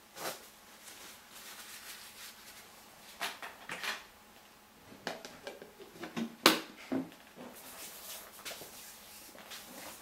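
Scattered knocks, clicks and rustles of handling work at a wooden screen-printing frame as the screen is readied for printing. The loudest knock comes about six and a half seconds in.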